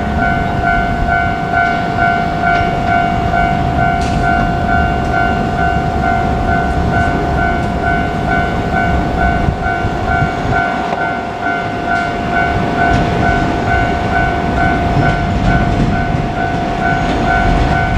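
Japanese level-crossing warning bell clanging over and over at an even pace, over the continuous low rumble of a KiHa 47 diesel railcar running past.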